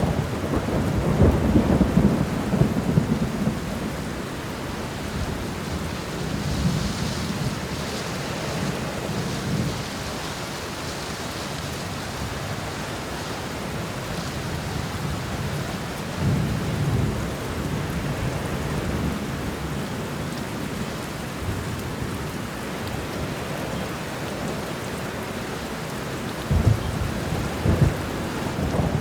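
Steady rain with thunder rumbling over it: a long rumble at the start, another about halfway through, and a few sharper low rolls near the end.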